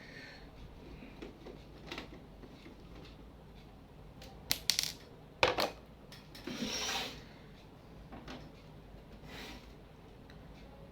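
A screwdriver and small metal screws clicking and clinking on the plastic body of a Canon LBP2900 laser printer as its casing screws are undone. A few sharp clicks about four and a half and five and a half seconds in, then a brief scraping rub.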